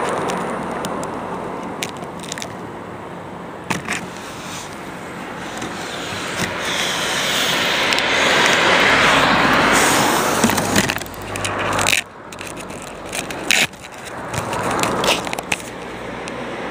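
Quadcopter motors and propellers heard through the onboard camera's microphone, a rushing noise that swells and fades, with several sharp knocks and a sudden drop in level about twelve seconds in.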